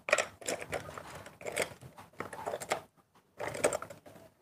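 Drawing a line on pattern paper: irregular scratchy strokes with small clicks and rustles of the ruler and paper being handled.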